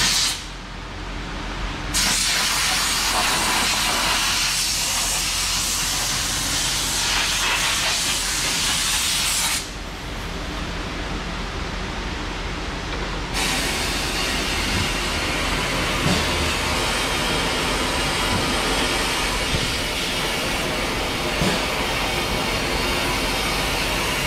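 Compressed-air spray wand hissing as it blows oil undercoating into the inside of a pickup's tailgate, mostly air with a little product. It sprays in two long bursts, the first starting about two seconds in and stopping near ten seconds, the second starting about three seconds later, with a steady low hum underneath.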